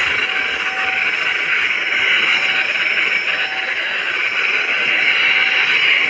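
Handheld vacuum cleaner running steadily, a loud even rush of motor and air as its nozzle is drawn over fabric sofa upholstery.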